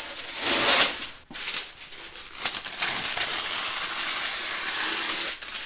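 A sheet of parchment paper rustling and crinkling as it is handled: a loud rustle about half a second in, then steady rustling for the last two and a half seconds.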